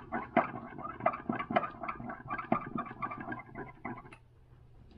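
A stir stick scraping and tapping against a glass measuring cup while mixing liquid lure plastic, about three or four strokes a second, scraping along the bottom of the cup. The stirring stops about four seconds in.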